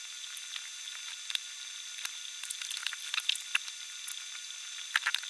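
Soft rustling and crackling of bedding and clothes being handled as a person gets out of bed, scattered clicks that come thicker in the second half, over a steady hiss.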